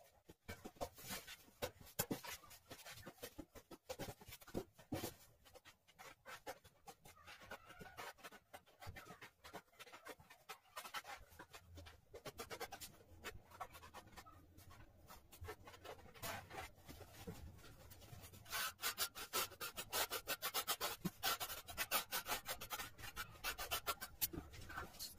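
Trowel scraping and spreading tile adhesive on a wall in quick repeated strokes. Near the end comes a fast run of strokes as a notched trowel combs ridges into the adhesive.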